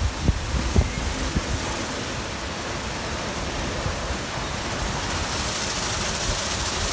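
WashTec SoftWash rollover car wash on its brush pass: the red and black SoftTec brushes spin against the car while water sprays, a steady rushing noise. A few low thumps come in the first second and a half, and the hiss grows stronger from about five seconds in.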